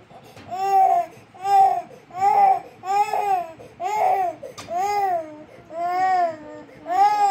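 A toddler crying out in a string of about eight short wails, each rising and then falling in pitch, one after another at a steady pace of a little under one a second.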